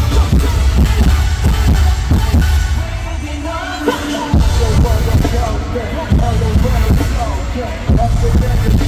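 Live K-pop concert music played loud through the arena sound system, with a heavy bass beat that thins and briefly drops out around the middle before coming back under a pitched melody line.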